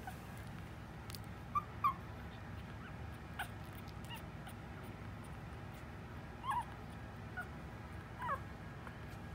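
Young Maltese puppies squeaking: about seven short, high peeps and whimpers, separate and scattered, each bending up and down in pitch.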